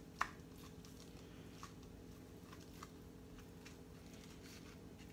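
Quiet kitchen handling sounds as pieces of raw short rib beef are moved about on a plastic cutting board: one sharp click just after the start, then faint scattered ticks and taps, over a steady low hum.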